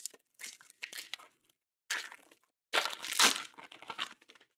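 Trading card pack wrapper crinkling and tearing as it is ripped open by hand, in several short bursts, then a longer, louder stretch of crinkling about three seconds in.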